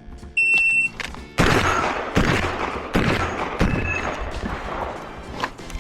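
Electronic shot-timer start beep, a short high steady tone, followed about half a second later by a string of shotgun shots fired in quick succession, roughly one every second or less, each with a ringing tail.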